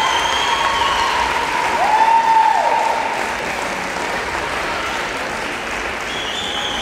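Audience applauding in a sports hall, with one drawn-out call rising and falling about two seconds in.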